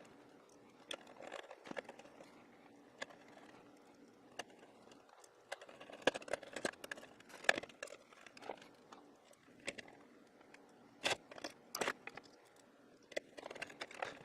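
Scattered light clicks and knocks of circuit boards and hardware being handled and fitted into an electronic instrument's chassis, a sharper pair of knocks about eleven seconds in.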